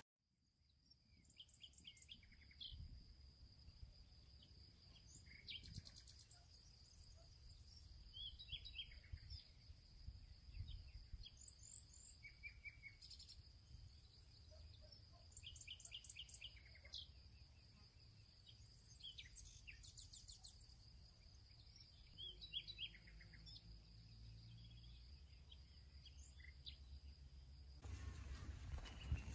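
Faint outdoor birdsong: scattered short chirps and trills from several birds over a steady high-pitched tone and a low rumble. Near the end the high tone stops and the low rumble gets louder.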